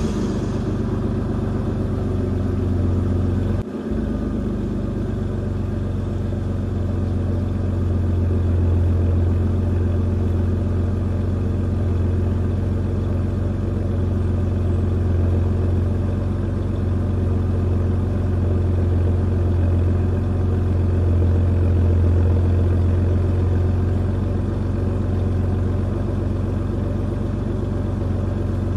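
2007 Ford Taurus's pushrod V6 idling steadily at the tailpipes, just after restarting from a Seafoam intake soak, while it clears the cleaner and loosened carbon.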